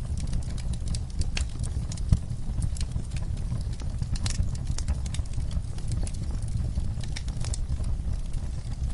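Wood fire crackling in a fireplace: irregular sharp pops and snaps over a steady low rumble, with one louder pop about two seconds in.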